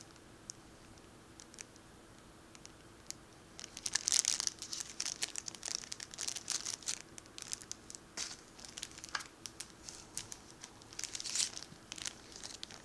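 Clear plastic bag packaging crinkling as it is handled, in irregular crackles and rustles that start about four seconds in after a quiet stretch.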